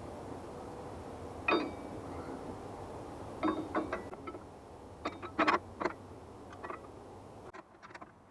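Sharp metallic clinks and knocks, single and in small clusters, from parts and tools being handled on a Frontier OS23 bandsaw sawmill.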